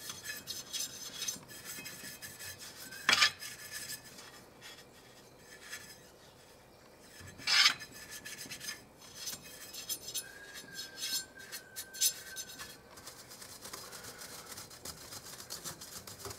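Dry paintbrush scrubbing dust out of an open PA amplifier, its bristles rasping in quick repeated strokes over the circuit boards and aluminium heatsink fins. Two louder short noises stand out, about three seconds in and again about seven and a half seconds in.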